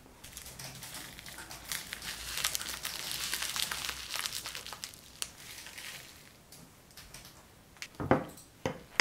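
Dry chili pepper flakes rubbed between fingertips and sprinkled over flour in a bowl: a fine, crinkly crackle lasting several seconds. Near the end, a spoon going into the bowl to mix makes two short knocks.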